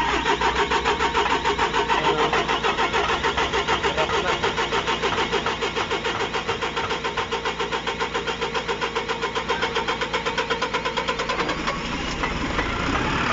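Volvo D5E four-cylinder diesel of an EC210D excavator being cranked over by its starter, with a fast, even pulsing. About eleven and a half seconds in, it catches and settles into a steady run. This is a hard start, which the mechanic puts down to a failed fuel pressure sensor whose signal voltage stays fixed.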